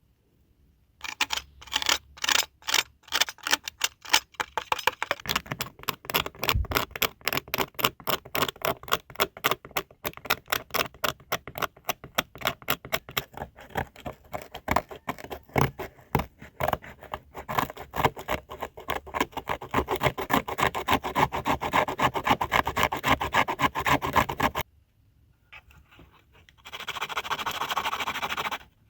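Rapid, repeated scraping strokes on plastic, several a second, running for over twenty seconds and stopping suddenly. A short steadier scraping or rubbing noise follows near the end.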